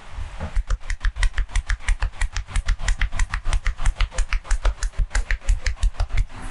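Rapid percussive massage strokes: a barber's hands chopping or tapping on the body in a fast, even rhythm of about seven strikes a second, each a sharp slap with a dull thud under it. The strikes start about half a second in and stop just before the end.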